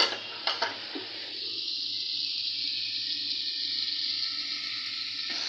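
A sharp metal clink of an aluminium lid at the start and a couple of lighter knocks, then chicken curry sizzling steadily in a metal pan.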